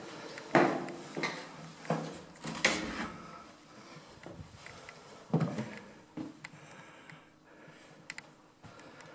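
Footsteps thudding up a few steps, then knocks and bumps as a wooden door is pushed open and walked through, with a few light clicks near the end.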